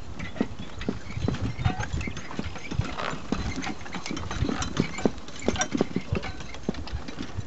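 An Ayrshire ox walking across pasture, towing a small wheeled cart by a chain tied to its halter: irregular knocks, rattles and clinks over a steady low rumble.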